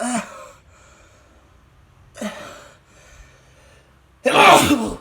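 A man sneezing in bursts, set off on purpose by tickling inside his nose. Two shorter gasping sneezes come about two seconds apart, then a much louder full sneeze about four seconds in.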